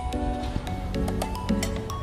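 Background music with a steady beat and a repeating melody.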